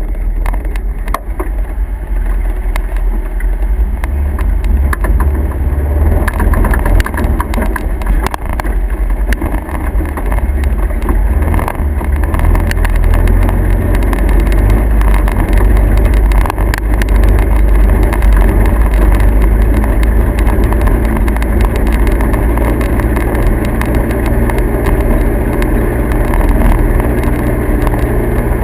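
A motor vehicle running: a steady, loud low rumble with scattered rattles and clicks, a little louder from about four seconds in.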